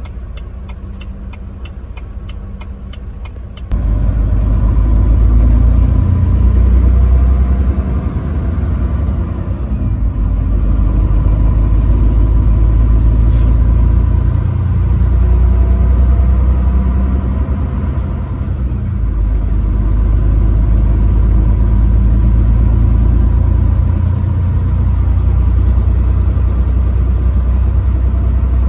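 Truck on the road: a steady low rumble of engine and road noise. A quieter stretch with a regular ticking about four times a second opens the passage, and a little under four seconds in it cuts abruptly to the louder rumble.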